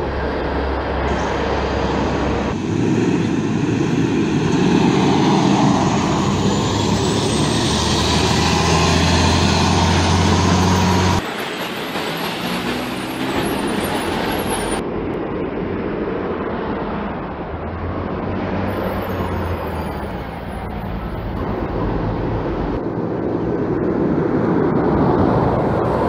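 Dennis Condor three-axle double-decker buses driving past close by, diesel engines running under load, over street traffic noise. The engine note rises for several seconds in the first half, and the sound jumps abruptly a few times where separate recordings follow one another.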